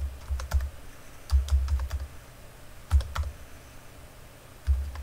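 Computer keyboard typing: four short bursts of key clicks with dull thumps, about a second or so apart, as numbers are keyed in.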